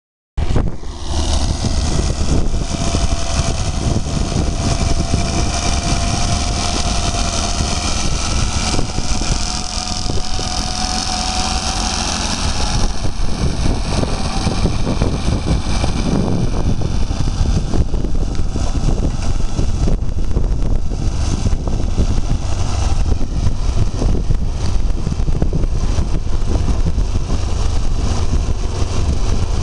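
Homemade mini-tractor's engine running steadily under load as it pulls a potato planter through the soil.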